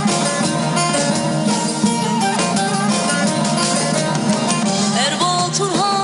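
Live Turkish folk band with bağlama, acoustic guitar and keyboard playing an instrumental passage at a steady pace. A woman's singing voice comes in about five seconds in.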